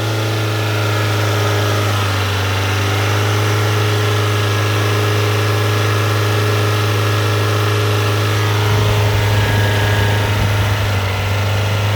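2015 Honda Fit's four-cylinder engine running steadily at a raised speed, about 2,500 to 3,000 rpm, while throttle-body and intake cleaner is sprayed into it. It turns rougher and lower for a couple of seconds near the end as it takes in the cleaner.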